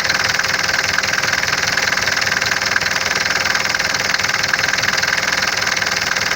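Mercedes OM601 four-cylinder diesel engine idling cold, with a steady fast knocking from the top end. After an engine flush and oil change a knock remains, which the owner cannot pin down as the hydraulic lifters or something else.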